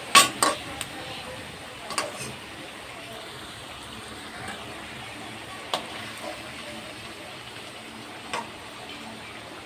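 Whole boiled potatoes deep-frying in hot oil in a kadai, a steady sizzle, with a metal ladle clinking against the pan a few times, sharpest right at the start and again at about two, six and eight seconds in as the potatoes are scooped out.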